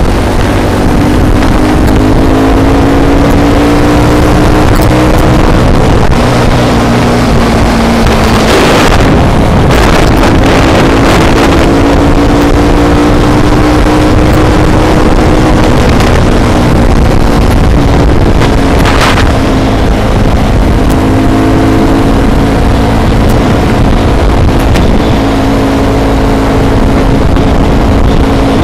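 Bashan quad bike's engine running at road speed, its pitch rising and falling with the throttle, dropping about a third of the way in and climbing again soon after, over steady wind rush on the microphone.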